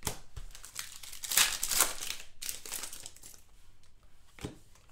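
Plastic trading-card pack wrapper crinkling as it is handled and torn open, in several irregular rustling bursts, the loudest about one and a half to two seconds in.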